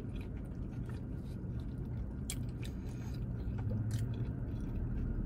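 Close-up chewing of a mouthful of chicken pesto pita wrap, with a few soft wet mouth clicks, over a low steady hum.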